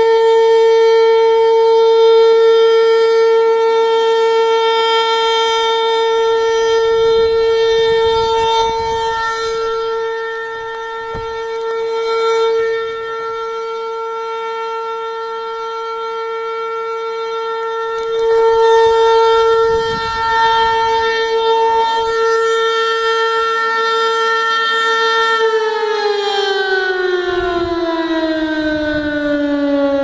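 Outdoor civil defense warning siren sounding a steady wail during a siren test, swelling and fading in loudness. A few seconds before the end it starts winding down, its pitch falling steadily.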